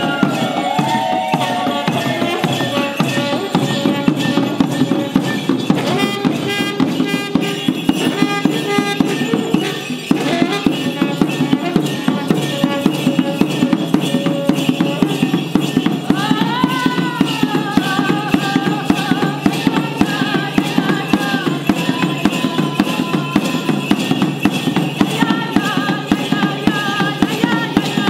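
Mapuche purrun music: a steady drumbeat on a kultrun-type hide drum struck with two sticks, with held horn notes from a coiled trutruka and rising-and-falling calls about halfway through.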